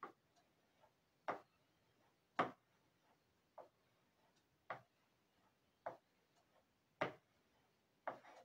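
Short scraping strokes of a small toothed metal tool over a wax carving block, evenly paced at about one stroke a second, eight in all.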